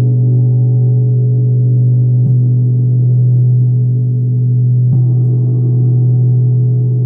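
Large hanging gong struck softly with a felt-headed mallet twice, about 2.3 s and 5 s in, each stroke renewing a steady, deep, humming drone that never dies away.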